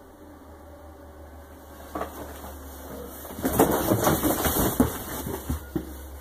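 Cardboard boxes being shoved and knocked aside: a single knock about two seconds in, then a couple of seconds of dense clattering and scraping of cardboard, over a steady low hum.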